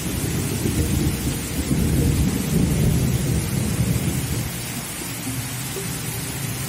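Heavy rain falling steadily, with a long deep rumble of thunder that builds over the first two seconds or so and dies away about two thirds of the way in.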